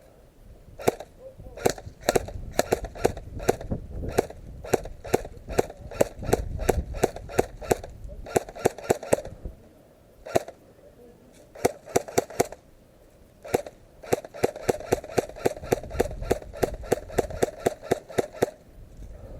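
Airsoft gun firing rapid single shots in strings of sharp clicks, about four a second, with short pauses partway through and a few lone shots in between.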